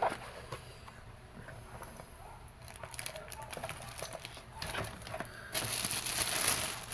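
A cardboard box being opened and handled, with scattered light clicks and scrapes; about five and a half seconds in, loud crinkling of the plastic bag around the pistol as it is lifted out.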